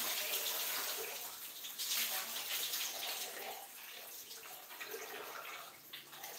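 A tap running into a plastic bucket, with wet rubbing and splashing as hair is scrubbed by hand. The water noise is loudest near the start, surges again about two seconds in, then fades.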